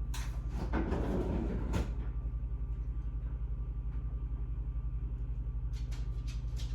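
Kitchen handling sounds: a rustling clatter in the first two seconds and a few sharp clicks near the end, over a steady low hum with an even pulse.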